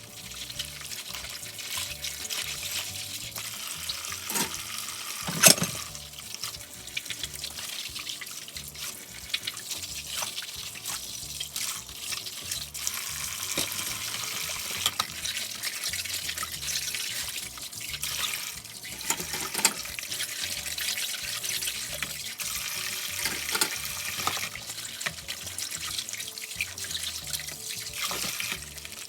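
Kitchen tap running into the sink while dishes are washed, with scattered clinks and clatters of dishware and one sharp clack about five seconds in.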